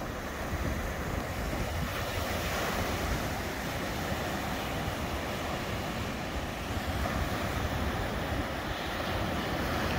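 Small waves breaking and washing up the shore, a steady rushing surf, with wind buffeting the microphone.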